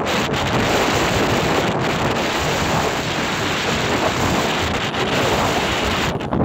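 Wind buffeting the microphone of a phone carried on a moving motorbike: a loud, steady rushing noise.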